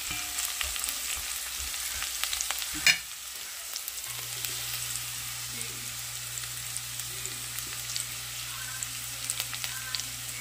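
Sliced red onions sizzling in olive oil in an enameled cast-iron Dutch oven, softening as they sauté, stirred with a silicone spatula, with one sharp knock about three seconds in. A low steady hum joins about four seconds in.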